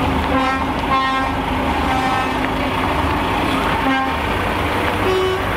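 Lorry horns tooting in short blasts, several times, over the low running of diesel tractor units driving past in a slow convoy; the last toot, near the end, is lower in pitch.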